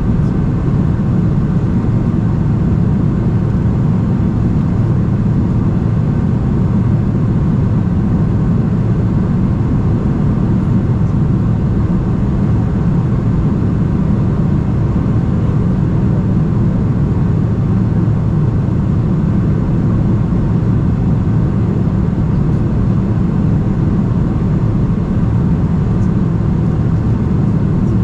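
Steady cabin noise inside a Boeing 747-400 in flight: the low, even rumble of airflow and its four turbofan engines, heard from a window seat, with no changes in thrust.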